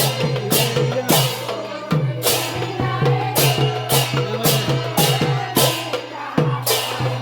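Sylheti dhamail folk song: sharp rhythmic percussive strikes, roughly two a second, over a steady low tone.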